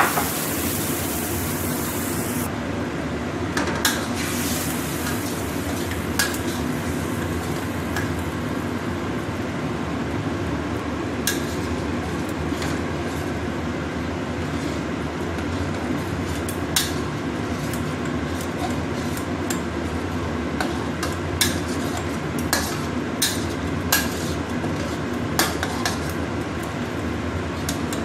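Metal spatula stirring chili paste in a stainless steel wok, scraping and clinking sharply against the metal at irregular moments, over a steady low rumble.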